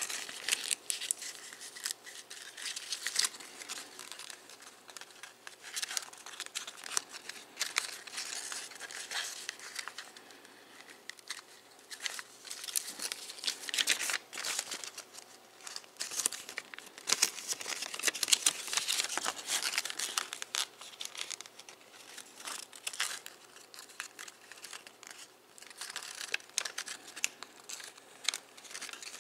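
Origami paper crinkling and rustling under the fingers as it is folded and creased, in irregular crackly bursts.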